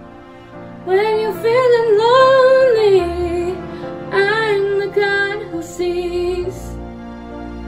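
A female voice singing a slow hymn-like melody in long held phrases over sustained instrumental accompaniment.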